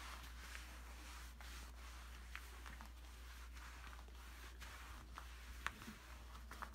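Faint, soft swishing of a tanning mitt being rubbed over the skin of a leg, in uneven strokes, with a few light clicks, the sharpest near the end, over a steady low hum.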